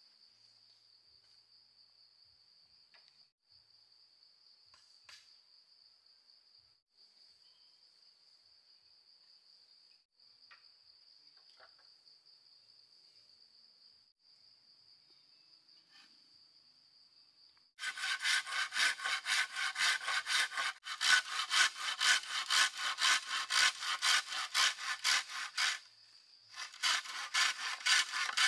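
A faint, high, steady insect trill in runs of a few seconds each. About eighteen seconds in, a hand saw starts cutting wood with quick back-and-forth strokes, pauses briefly near the end and starts again.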